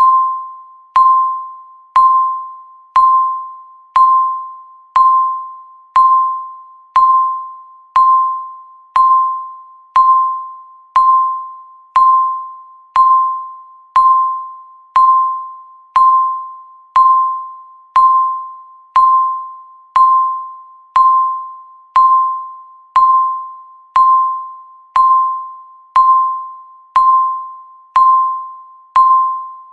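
Countdown timer beeping once a second, ticking off the seconds: each beep is a single mid-pitched electronic tone that starts sharply and fades away before the next.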